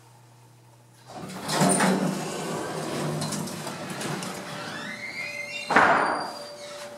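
Vintage Otis traction elevator's sliding doors in motion: a rush of door noise starts about a second in, a squeal rises in pitch, and a loud bang comes near the end as the doors stop.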